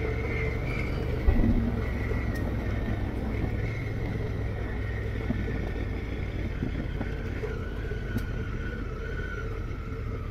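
Adventure motorcycle running steadily along a dirt track, heard through heavy wind noise on a helmet-mounted action camera's microphone, with one thump about a second in.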